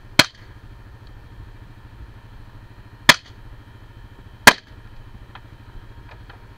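Three rifle shots from a scoped rifle: one right at the start, then two more about three and four and a half seconds in. A steady low hum runs underneath.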